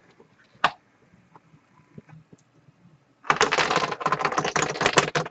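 A dropped disc clattering down through the pegs of a Plinko-style drop board: a rapid, irregular run of clicks for about three seconds, starting a little past halfway. A single click comes first, about half a second in.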